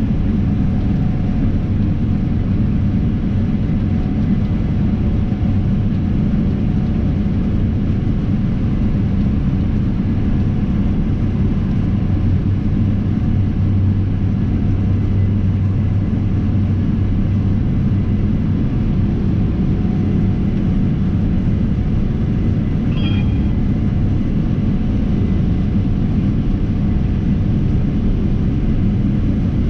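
Case IH 9250 Axial-Flow combine running steadily under load while harvesting wheat: an even, deep machine rumble that does not change. One brief high beep sounds about three-quarters of the way through.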